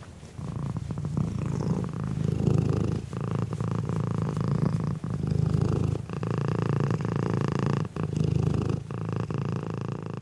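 Domestic cat purring, a low, fast pulsing rumble that goes on in long stretches with brief breaks every second or two.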